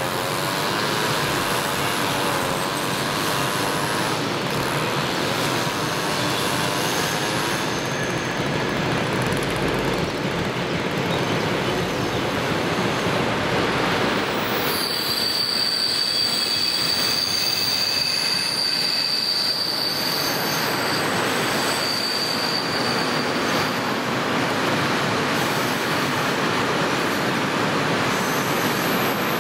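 FS D345 diesel locomotive hauling a container freight train: the engine drone grows as it approaches and passes, then the wagons rumble by with a high, steady wheel squeal on the curve from about halfway through.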